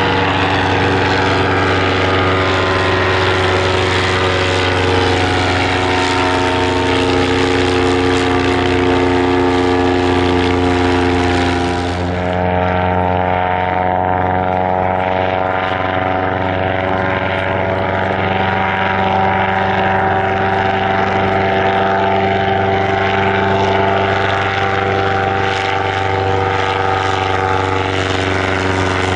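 Piston-engined propeller aircraft running, a steady engine drone whose pitch drifts slowly. About twelve seconds in the sound turns abruptly duller, losing its high hiss.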